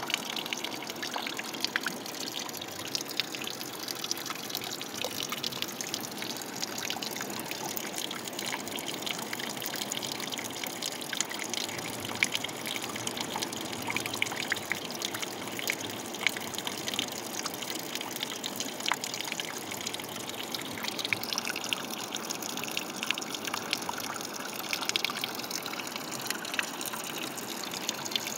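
A thin stream of water falling into a shallow muddy pool and splashing steadily, with many small splashes and patters throughout.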